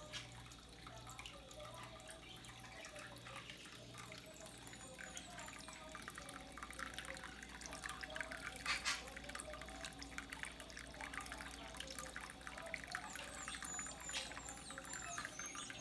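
Water trickling and dripping steadily, with many small splashes and a few short high chirps.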